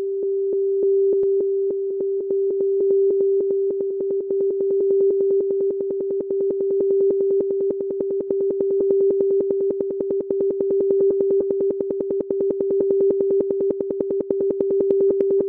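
Electronic noise music: a single steady mid-pitched drone that starts abruptly, pulsed by a rapid train of clicks that grows denser and brighter toward the end.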